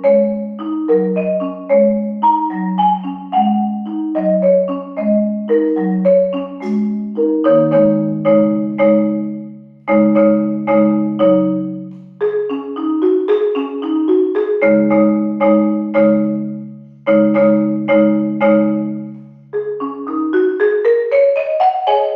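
A marimba piece played with mallets: struck, quickly decaying notes over a repeating bass pattern, with held low notes in the middle and a rising run of notes near the end.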